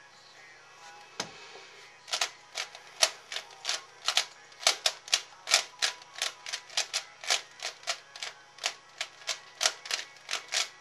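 C4U (Cube4You) 3x3x3 speedcube being turned face by face as it is scrambled: a run of sharp, irregular plastic clacks, about three a second, starting about two seconds in.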